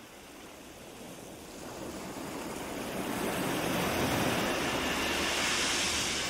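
A steady rushing noise fades in and swells louder over several seconds, with its hiss brightening near the end.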